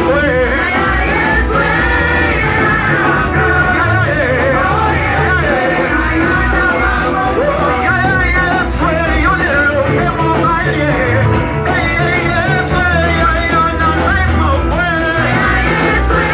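Live worship music: voices singing over a band, with a low bass and drum pulse keeping a steady beat.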